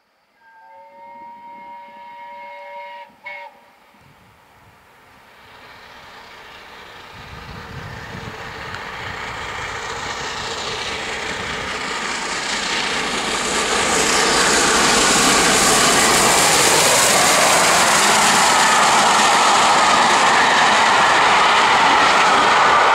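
A train horn sounds a steady chord for about three seconds. After a short lull, the rush of A1 steam locomotive 60163 Tornado and its coaches running at speed grows steadily louder as it approaches and passes, with wheels clattering on the rails.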